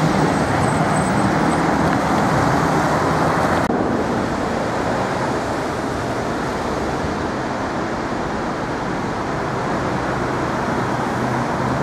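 Street traffic noise, a steady rush of city cars. About four seconds in it changes abruptly to a duller, slightly quieter traffic noise.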